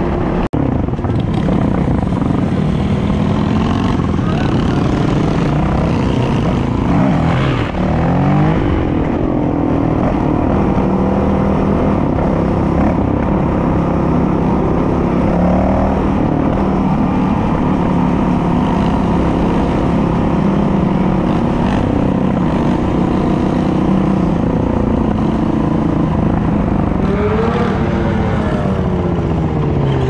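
Dirt bike engines running on the road, their pitch rising and falling as the throttle opens and closes. The rider's own bike is the nearest and loudest. In the last few seconds several engines rev at once, their pitches crossing.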